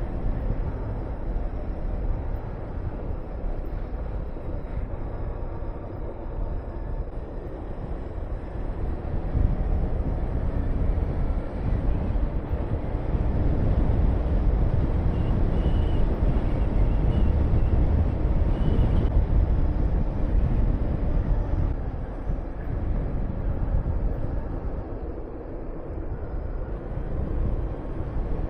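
Honda VTR250's 250 cc V-twin engine running under way, mixed with heavy wind rush over the rider's microphone; it grows louder for a stretch in the middle and eases off again.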